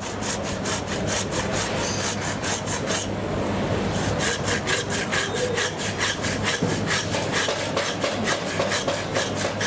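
Butcher's hand saw cutting through bone, quick, even back-and-forth strokes with a brief pause about three seconds in.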